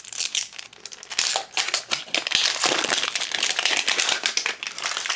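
Plastic wrapping crinkling and rustling as a double-wrapped Mini Brands capsule ball is pulled open by hand, a dense run of crackles that grows busier and louder after about two seconds.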